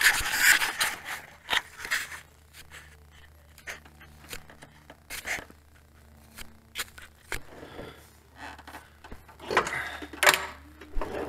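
Scattered clinks, knocks and scrapes of metal parts and hand tools being handled while a replacement hydraulic pump is fitted, with a louder cluster of knocks about ten seconds in, over a faint steady low hum.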